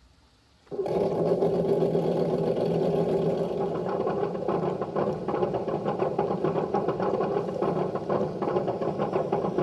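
Sense-Innovations ESS Dual sound module playing a simulated engine running steadily through its speaker, starting about a second in and cutting off abruptly near the end.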